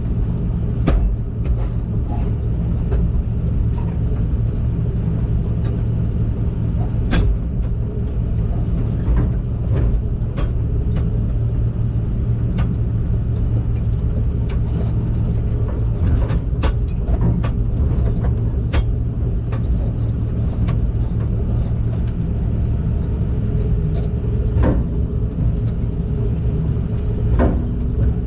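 Heavy vehicle engine running steadily with a low drone, with scattered clicks and knocks over it.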